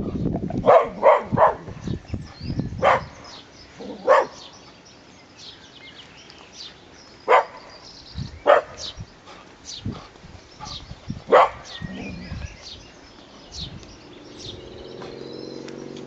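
Cocker spaniel barking: a quick run of three woofs, then single barks every second or few. It is territorial alert barking at passers-by.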